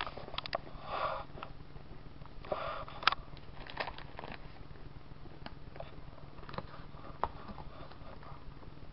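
A person eating a mouthful of chewy candies. There are two short sniffs about one and two and a half seconds in, then scattered small mouth clicks of chewing.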